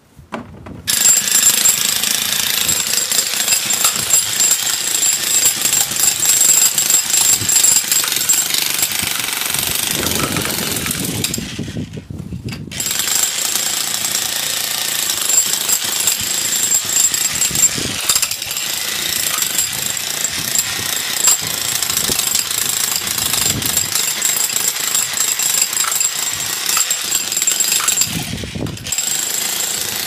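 Corded electric demolition hammer (breaker) hammering its chisel bit into the ground, a loud, steady, rapid hammering. It starts about a second in, stops for about a second near the middle, then runs again with a brief pause near the end.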